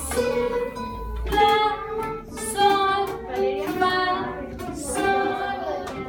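Young children singing a simple song together with acoustic guitars strummed along.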